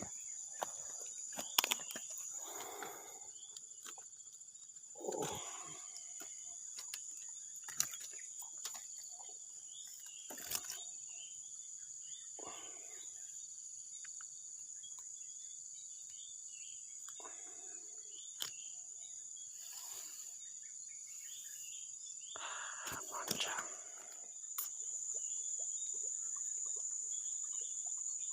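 Insects chirring steadily in one high, unbroken tone, with scattered small clicks and a few brief, muffled voice sounds.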